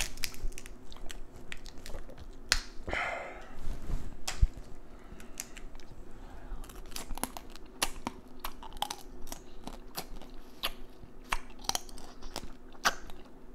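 Close-miked chewing and biting of Dungeness crab, with many sharp, irregular crunches and clicks and a louder noisy patch about three seconds in.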